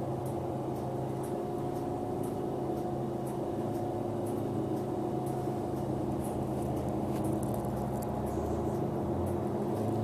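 2007 New Flyer DE40LF diesel-electric hybrid transit bus, with a Cummins ISL diesel engine and Allison EP40 hybrid drive, running steadily. It gives a constant hum of several steady tones, with faint light ticks and rattles on top.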